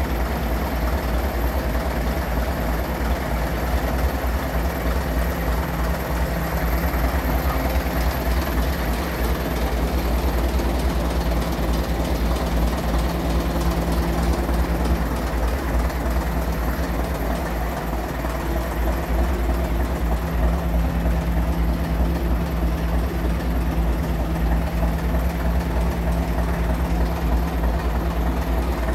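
Leyland diesel engine of a vintage London Routemaster double-decker bus idling steadily.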